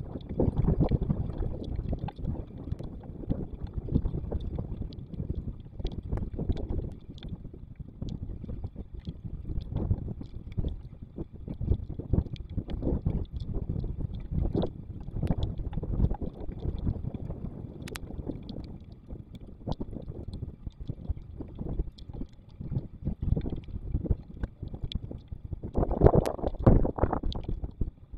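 Stormy wind buffeting the microphone in uneven gusts, with many small sharp ticks of rain striking near it. A stronger gust comes near the end.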